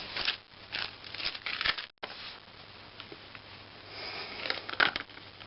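Packaging rustling and crinkling, with a few light clicks, as small skateboard parts are handled. The sound is busiest in the first two seconds, cuts out briefly, then goes on more quietly with a couple of clicks near the end.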